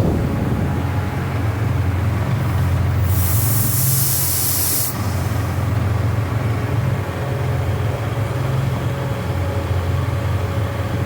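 CNC machine running with a steady low hum, and a burst of high hiss, like escaping air or gas, from about two and a half to five seconds in.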